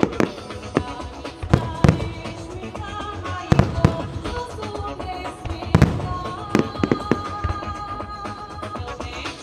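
Fireworks shells bursting in a rapid barrage, around ten sharp booms, some in quick pairs, over continuous music.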